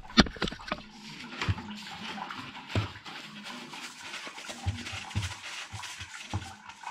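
Hands snugging a sump pump pipe fitting into place: a sharp click near the start, then scattered light knocks, scrapes and rubbing of the parts.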